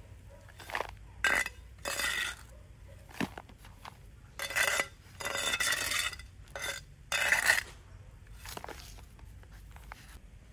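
A series of irregular scrapes and clinks of hard objects being handled, about nine strokes with a slight ring to some of them.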